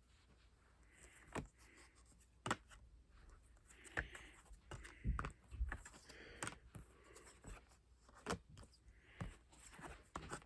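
Faint handling noises of cards and cardboard packaging: scattered light clicks and taps, about a dozen, with soft rustling between them as the contents are moved and pulled out.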